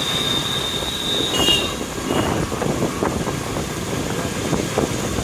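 Ride noise from a motorcycle moving through heavy rain: a steady rushing rumble of wind, road and rain on the phone microphone, with a thin high whine that stops about a second and a half in.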